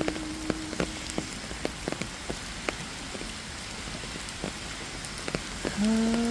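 Steady rain with many separate drops ticking sharply on a surface. A held note of the hymn melody fades out about a second in, and a new held note begins near the end.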